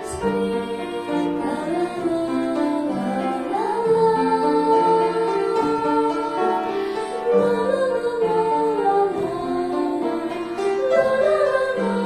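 A song: a vocal duo singing a melody over an instrumental backing track.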